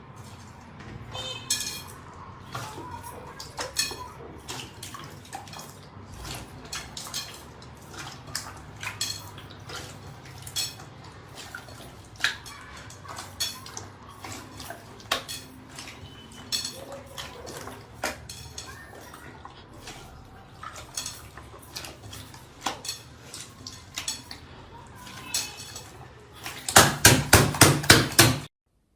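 Irregular light clicks and clinks, like dishes and cutlery being handled. Near the end comes a loud, rapid run of about nine ringing taps, which stops suddenly.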